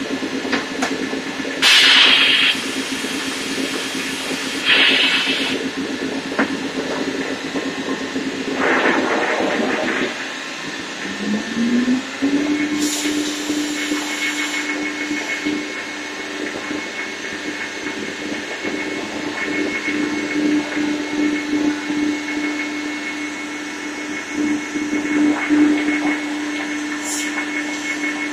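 Anderson CNC router running: a steady machine hum with several short bursts of hissing air. About eleven seconds in, a motor winds up in pitch and settles into a steady whine, typical of the router spindle coming up to speed.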